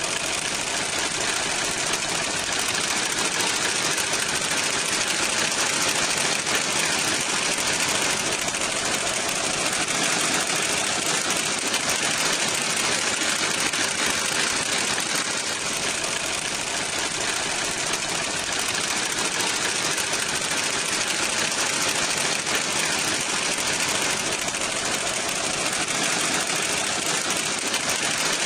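Opel's radiator cooling fan running steadily with an even rush of air, over the engine idling.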